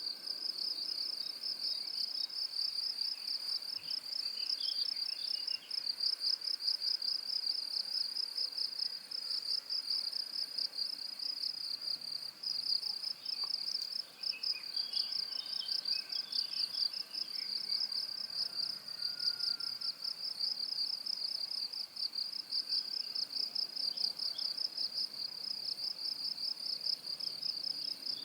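Crickets trilling: a continuous, high-pitched chorus of rapid, even pulses, with a few fainter chirps mixed in now and then.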